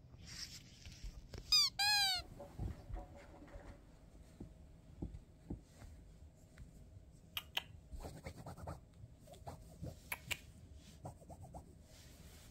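A cat gives two short chirping meows about two seconds in. Then fingernails scratch at a fabric sofa in a run of light scrapes and taps.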